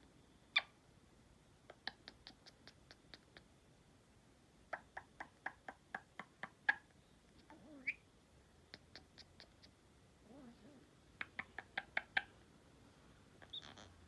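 Pet parrot making its odd clicking noises: runs of sharp clicks about five a second, in bursts of six to ten, broken by a couple of short chirps and a brief low warble.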